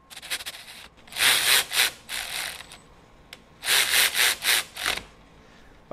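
Milwaukee M12 FUEL Insider ratchet turning steel nuts on threaded studs, heard as three rasping bursts of metal grinding on metal with a single sharp click between the second and third.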